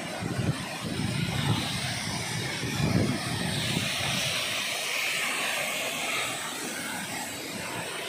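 Steady roar of a tall waterfall and the stream rushing over boulders below it. A few low rumbling bumps, like wind on the microphone, come in the first three seconds.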